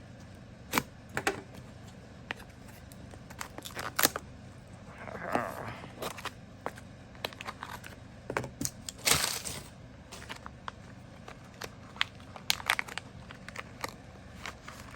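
Packaging being cut and torn open and handled by hand: scattered clicks and taps, with brief bursts of tearing and crinkling, the loudest about nine seconds in.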